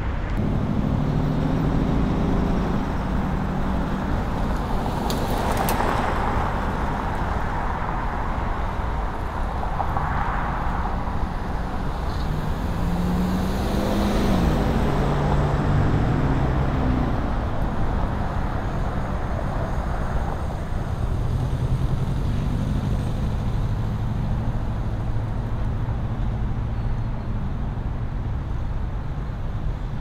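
Road traffic: cars passing one after another over a steady hum of engines, each swelling and fading as it goes by, one with a falling engine note about halfway through.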